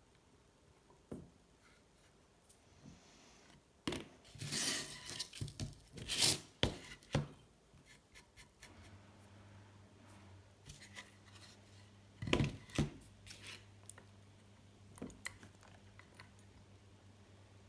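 Small hand tools and metal parts being handled: scattered scrapes, clicks and light knocks in two clusters. A faint steady low hum starts about halfway through.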